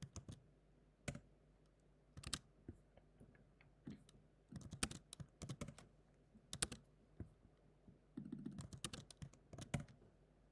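Computer keyboard keys clicking in scattered single taps and short bursts as shortcuts are pressed to copy, paste and enter commands.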